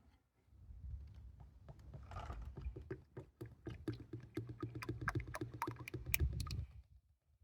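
New 0W-20 motor oil glugging as it is poured from a 5-litre jug into the engine's oil filler, with a fast, regular run of gulps as air bubbles back into the jug. The pour stops abruptly shortly before the end.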